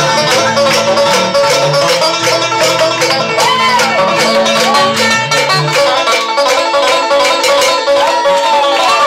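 Banjo picked in a fast bluegrass-style tune, with a few notes that bend up and down in pitch. Lower notes run under it and drop out about six seconds in.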